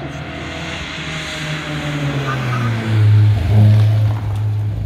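Classic Ford Escort Mk2 rally car driving past at speed. Its engine note grows louder as it approaches and is loudest as it passes, about three seconds in, with a short break in the note partway through the pass.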